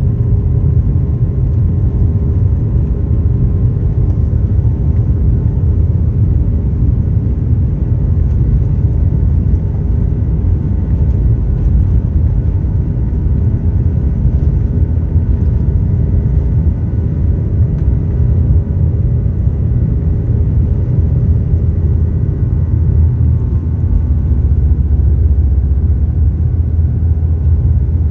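Airliner engines running steadily before takeoff, heard from inside the cabin: a constant deep rumble with a faint steady hum over it.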